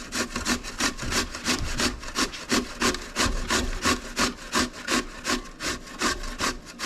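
Zucchini being grated on a hand grater: steady, rhythmic rasping strokes, about three a second.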